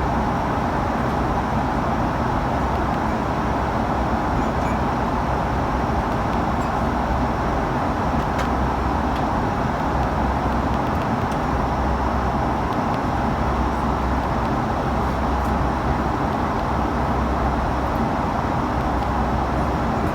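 Steady cabin noise inside an Airbus A330-300 airliner: an even rush with a low hum beneath it, unchanging throughout.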